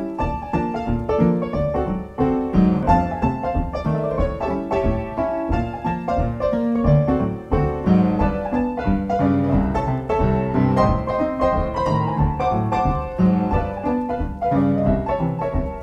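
Background music led by piano, with a dense run of notes over a steady low part.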